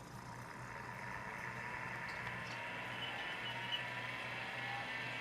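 Seagate ST4038 MFM hard drive spinning up at power-on: a whir that grows and rises in pitch over the first two seconds, then runs steady.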